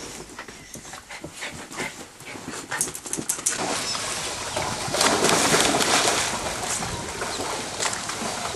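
Dogs splashing as they swim across a swimming pool after a ball. The splashing starts about three and a half seconds in and is loudest around the middle. Before it come scattered short clicks and scuffles.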